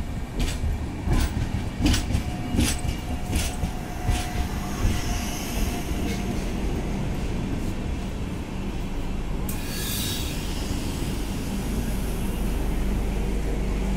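Passenger coaches of an Indian express train rolling slowly past alongside a platform as the train pulls in, with a steady low rumble. Wheels click over rail joints through the first few seconds, a thin steady squeal sounds from the wheels or brakes for a few seconds, and a short hiss comes near the middle.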